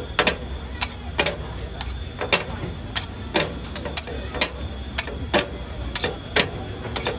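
Metal spatula chopping and scraping diced vegetables on a flat steel griddle, about two sharp clacks a second in a steady rhythm, over a low steady hum.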